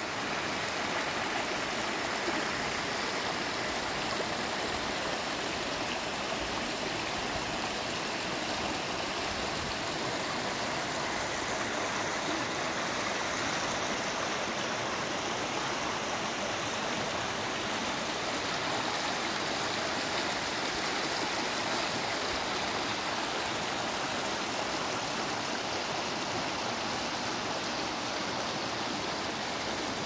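Shallow rocky mountain stream running over stones in small riffles: a steady, unbroken rush of water.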